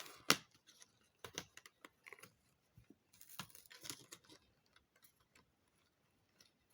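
Handling of a cardboard advent calendar compartment and its packaging: scattered light clicks and taps, with a short rustle about three seconds in.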